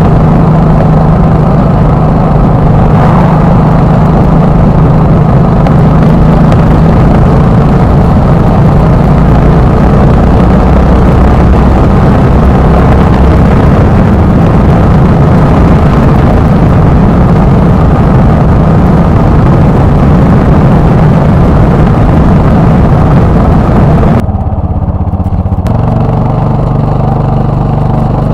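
Yamaha XT660R's single-cylinder four-stroke engine running at road speed under a heavy rush of wind. Near the end the wind noise drops away and the engine note comes through more plainly, rising in pitch as it pulls.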